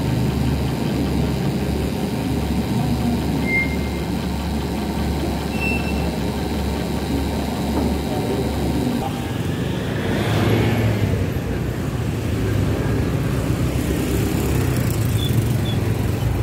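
Steady road traffic noise with a low engine hum. A vehicle swells louder and passes about ten seconds in.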